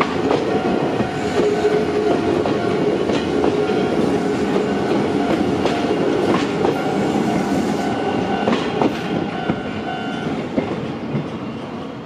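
Izuhakone Railway Sunzu Line electric train passing at close range, its wheels clacking over the rail joints with a few sharp knocks. The sound eases off near the end as the train moves away.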